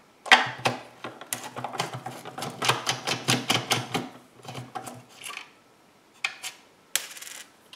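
Hand ratchet with an 11 mm socket clicking quickly, about five clicks a second for about four seconds, as it backs nuts off the back of a plastic tail light. A few separate clicks and knocks follow.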